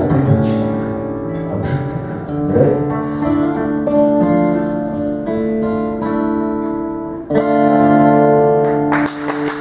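Acoustic guitar playing the song's closing instrumental bars, ending on a strummed chord about seven seconds in that rings on. Applause starts near the end.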